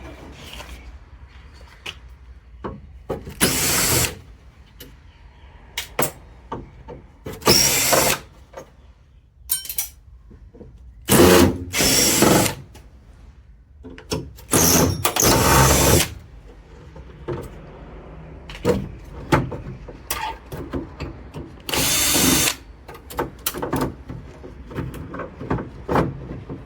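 Power drill running in several short bursts to back out screws, with small clicks and knocks of metal parts in between.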